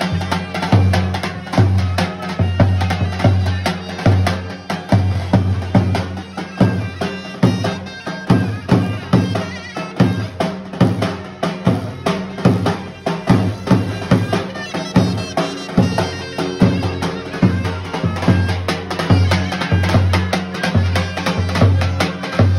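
Davul, the large double-headed Turkish bass drum, beaten with a stick in a steady folk-dance rhythm, while a wind instrument plays a sustained folk melody over it.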